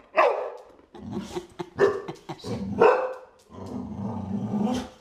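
A boxer dog barking, about four short barks in the first three seconds, then a longer, lower drawn-out growl near the end.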